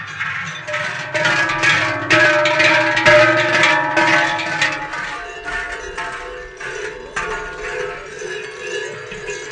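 Large cowbells (Schellen) and round crotal bells (Rollen) worn by Appenzell Silvesterchläuse, clanging and jangling in a dense rhythmic peal as the wearers walk. It is loudest a couple of seconds in and gradually fades.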